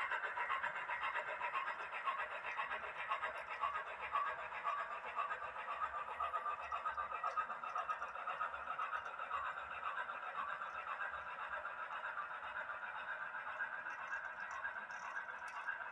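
Model Union Pacific train rolling past on the layout track: a steady rolling noise of wheels on rail with fine rapid ticking, easing slightly toward the end.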